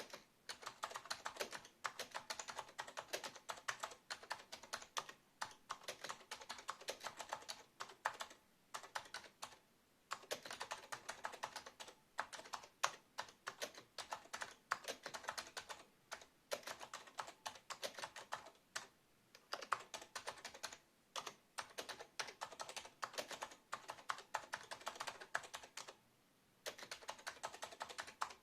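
Typing on an Acer 6311 keyboard: fast runs of key clicks in bursts, with brief pauses between them.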